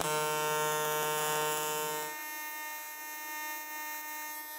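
AC TIG welding arc on aluminium, giving a steady electrical buzz. About two seconds in its tone changes and it continues a little quieter.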